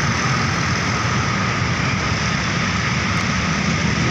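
Steady roadside traffic noise from heavy vehicles such as buses and trucks: continuous engine and tyre rumble, with no horn sounding.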